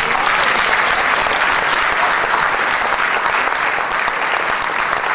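Loud, steady applause from an audience, with the panelists clapping along.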